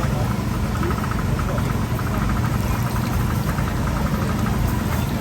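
An engine running steadily at idle: a continuous low hum with a fast, even pulse.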